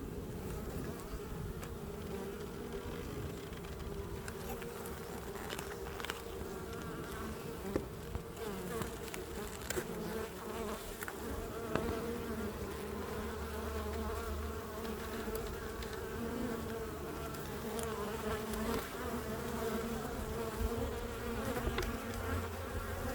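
Honeybees from an open hive buzzing in a steady, many-voiced drone, with a few light knocks as the wooden hive frames are slid over.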